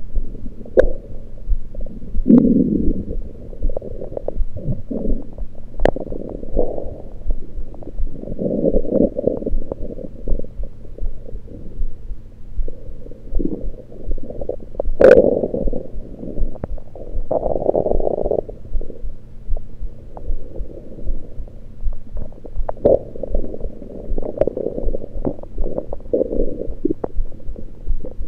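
Stomach and bowel gurgles heard through a USB electronic stethoscope on the belly, caused by liquid and air shifting in the gut rather than digestion. The gurgles come irregularly throughout, with a few sharp pops; the loudest is about halfway through, followed by a long gurgle a couple of seconds later.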